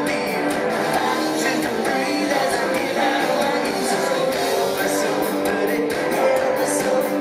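Live rock band playing at full volume: strummed electric guitar over a steady drum beat.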